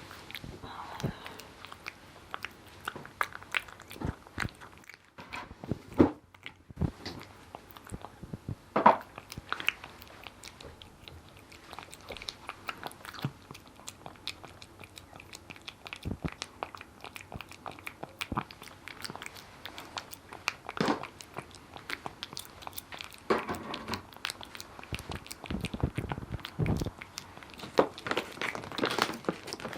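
A cat eating, crunching and chewing dry kibble in quick, irregular bites, with a few louder clicks.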